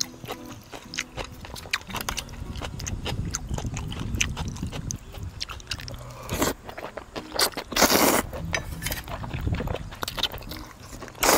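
Someone eating cold noodles in broth: chewing with many small clicks, and three louder slurps, a little past six seconds, around eight seconds and near the end.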